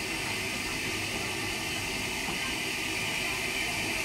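Steady high hiss of escaping steam from Southern Railway Schools-class steam locomotive No. 926 as it eases slowly along the platform, with no distinct exhaust beats.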